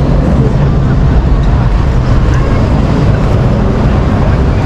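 A motor running steadily with a deep, even low rumble.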